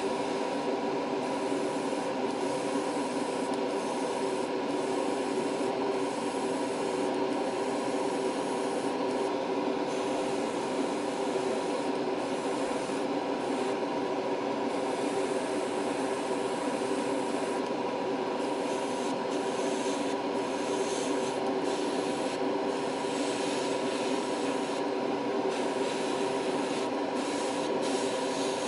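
Airbrush compressor running steadily with a motor hum, while air and paint hiss from the airbrush, the hiss thinning briefly here and there as the trigger is eased.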